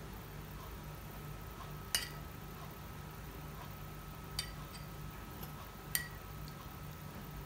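Metal spoon clinking against a small drinking glass three times, at intervals of about two seconds, over a faint steady hum.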